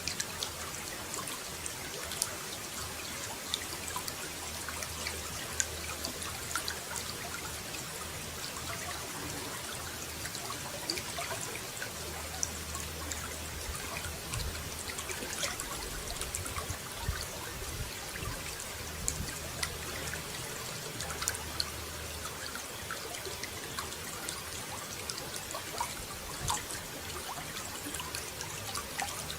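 Running water trickling and splashing steadily, with many small sharp splashes through it.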